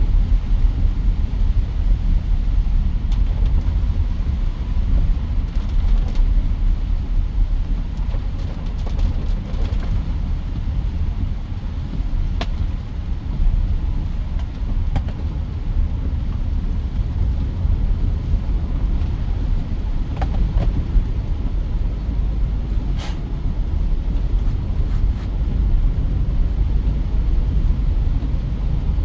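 Mitsubishi Pajero Sport on the move: a steady low rumble of road and engine noise, with a couple of faint clicks partway through.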